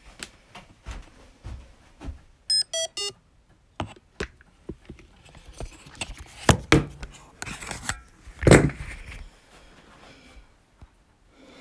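Handling noise as the camera is taken hold of and its lens covered: knocks, taps and rubbing against the microphone. Three short electronic beeps falling in pitch come about two and a half seconds in, and the loudest rub and thump comes about eight and a half seconds in.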